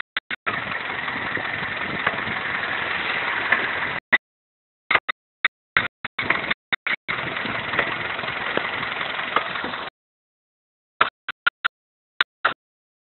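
Kia Forte 1.6 L four-cylinder engine idling in neutral in two stretches of steady running, cut by short sharp clicks, several in the gap between them and a cluster near the end. The owner is chasing a 'tat' knock from the clutch or gearbox that comes just after the clutch is released in neutral.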